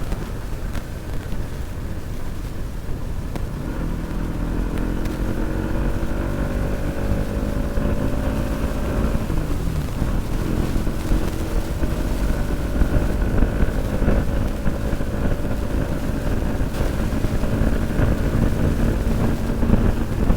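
Bajaj Pulsar NS200 single-cylinder engine pulling at full throttle on the move, its pitch climbing slowly, dipping briefly about ten seconds in, then climbing again, under heavy wind rumble on the microphone.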